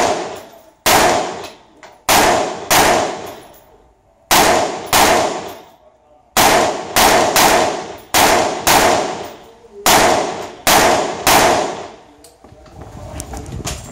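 About fifteen rifle shots fired in an IPSC rifle stage, each sharp report followed by a long echoing tail. The first shots come singly and in pairs more than a second apart, then a quicker run of about two shots a second near the middle, and the firing stops a little before the end.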